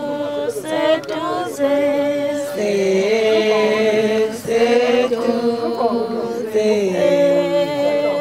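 Several voices singing a chant-like song together, holding long notes and moving to a new pitch every second or two without a break.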